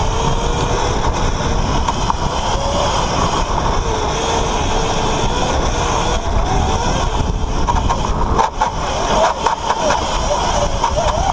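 Electric drift kart driving, heard from onboard: a whine that wavers up and down in pitch over heavy wind noise on the microphone.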